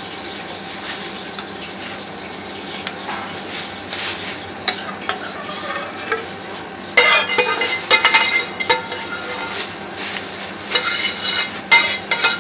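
Thick curry sauce being poured from a pan into a foil takeaway tray, over a steady hiss. From about seven seconds in, a spoon scrapes and knocks against the pan in quick, sharp clicks as the last of the sauce is scraped out.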